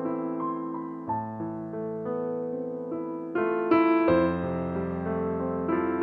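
Background music: slow piano, held notes and chords changing about once a second.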